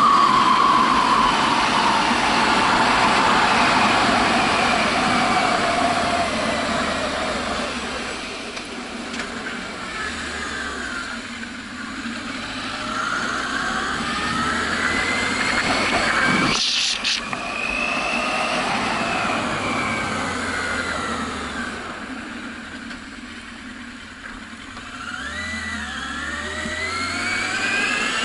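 Yamaha FZS600 Fazer's inline-four engine under way. The revs fall in the first few seconds as the bike slows, climb through the middle, and fall and climb again near the end, with one brief sharp sound about two-thirds of the way in.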